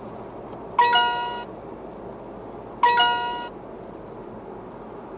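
Uniden R7 radar detector sounding its overspeed alert chime twice, about two seconds apart. Each is a bright ding of several tones that dies away within about half a second, over steady road noise inside the car. The chime warns that the car is over the set speed while approaching a red-light speed camera alert.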